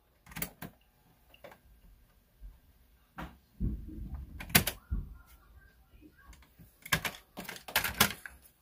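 Plastic piano-key transport buttons on a Philips Magnavox boombox's cassette deck clicking and clunking as they are pressed and released, with a quick run of clicks near the end as the cassette door and tape are handled.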